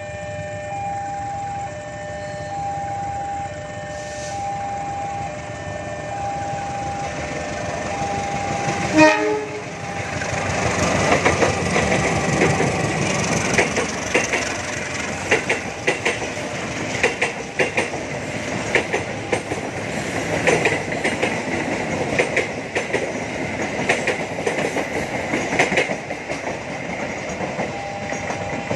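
Level-crossing warning alarm sounding in a pulsing repeated tone, then a brief loud horn blast about nine seconds in as a diesel locomotive reaches the crossing. The locomotive and its wagons then pass with a loud rumble and rapid clacking of wheels over the rail joints and crossing, and the alarm is heard again near the end.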